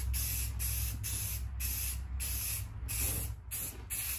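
Aerosol rattle can of spray primer hissing in a run of short passes, about two a second, with brief breaks as the nozzle is let up between them.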